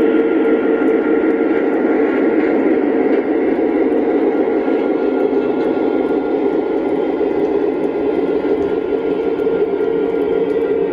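Lionel Legacy E6 diesel model locomotives running steadily around three-rail O-gauge track, a continuous rumble of wheels on the rails with a steady hum running through it.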